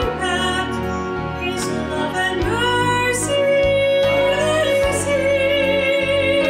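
A woman singing a slow solo with instrumental accompaniment. She holds long notes, with a clear vibrato in the second half.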